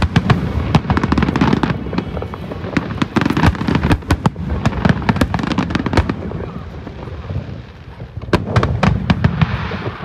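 Aerial fireworks display: a dense run of shell bursts and crackling bangs over a low rumble. The bangs ease off about seven seconds in, then a fresh cluster of sharp reports comes near the end.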